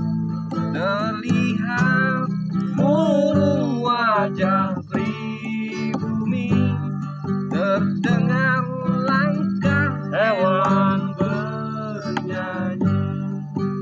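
Acoustic guitar strummed in chords, accompanying a man singing.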